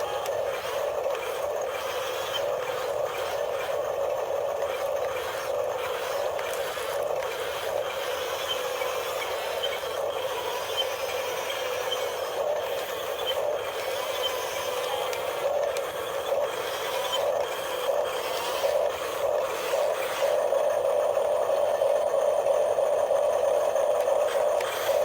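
Small electric motor and plastic gearing of a radio-controlled model cement mixer truck running with a steady whine, with scattered clicks and rattles; the whine grows louder about twenty seconds in.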